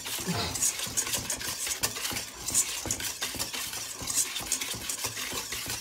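A utensil stirring a creamy coleslaw dressing in a bowl: a rapid, uneven run of scraping and clicking against the bowl.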